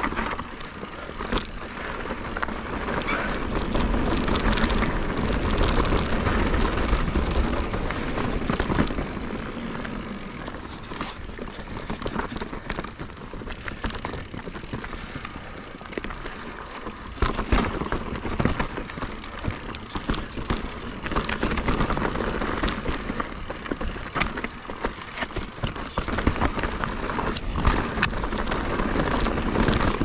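Giant Reign full-suspension mountain bike ridden over rocky dirt singletrack: tyres crunching on dirt and stones, with many clicks and rattles from the bike over the bumps and a low rumble underneath.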